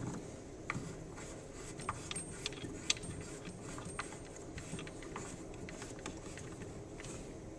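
Faint, irregular small clicks and taps of a compression nut and ring being turned by hand onto a water shut-off valve, with the parts knocking lightly as they are threaded.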